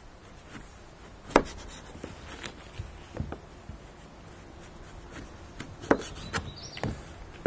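Knife cutting zucchini lengthwise into quarters, the blade knocking on the cutting board a handful of times at uneven intervals.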